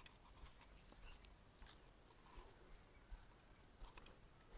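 Near silence: faint outdoor ambience with a steady high hiss and a few soft ticks.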